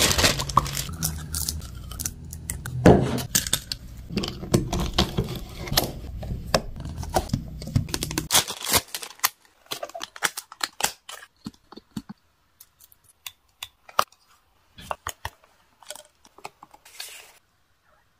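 Thin plastic packaging crinkling and rustling as a bag is handled, a dense crackle for about eight seconds. After that, only sparse small clicks and taps of handling a card of plastic packaging and a toothpaste tube's snap-on cap.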